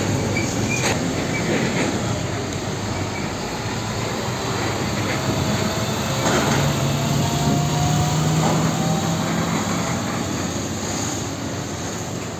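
Heavy diesel trucks driving past on a road: a steady engine drone with tyre and road noise, loudest about six to ten seconds in as a tractor unit hauling a tank container passes close.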